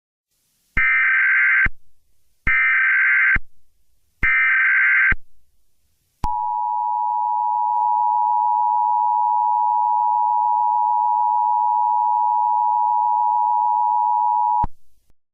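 Emergency Alert System tones: three short buzzing bursts of SAME digital header data about 1.7 s apart. Then the steady two-tone EAS attention signal is held for about eight seconds and cuts off suddenly.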